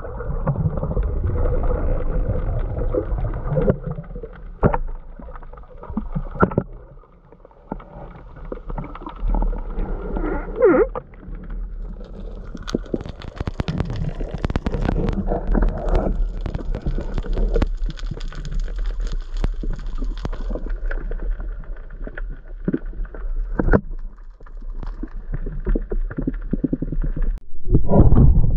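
Underwater sound picked up through a camera's waterproof housing: a muffled rumble of moving water with gurgling and scattered knocks and clicks. Near the end comes a louder burst of knocks and rumble as the speargun is fired and the spear strikes a fish.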